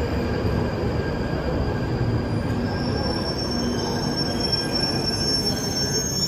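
London Underground tube train running into a platform and slowing to a stop, a steady rumble with a thin high squeal that sets in about halfway through and rises slightly near the end.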